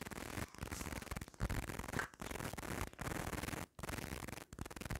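Crackling, rustling noise of paper plates and paper napkins being handled and slid on a table, broken by several brief sudden dropouts.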